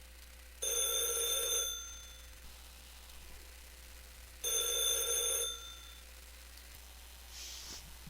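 A telephone ringing twice, each electronic ring about a second long and about four seconds apart: a call going through until it is picked up.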